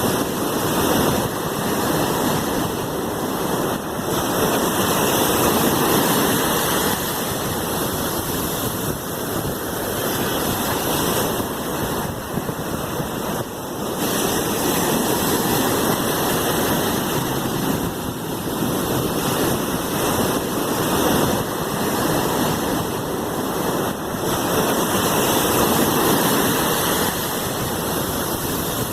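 Sea waves washing in: a continuous rush of surf that slowly swells and eases over several seconds.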